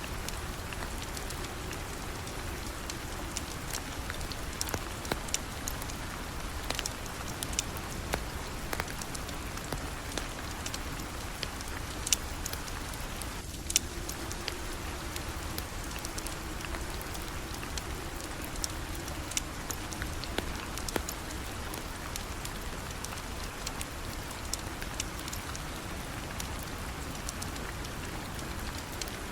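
Steady rain falling on a surface, with scattered sharp clicks and pops over it.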